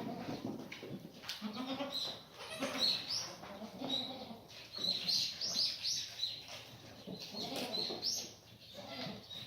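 Korean black goats bleating, several overlapping calls, some deep and some higher. Short high chirps and scattered knocks sound among them.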